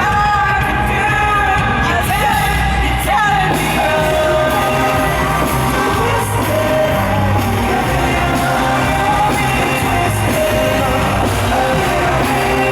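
Live pop concert heard from the audience: amplified singing over the band in a large hall, with fans close to the recorder singing along and yelling.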